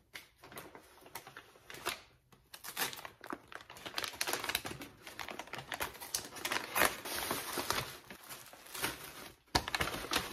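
Kraft paper mailer bag crinkling and rustling in irregular crackles as it is handled and opened, with one sharp, loud crackle near the end.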